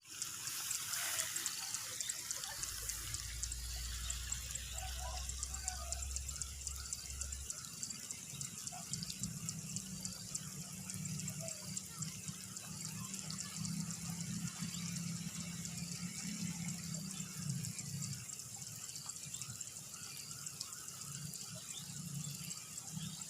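Water trickling and dribbling, over a steady, fast, high-pitched ticking.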